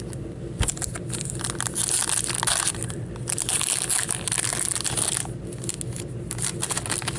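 Crinkling and tearing of a foil trading-card pack wrapper, a dense crackle that is strongest through the middle of the stretch.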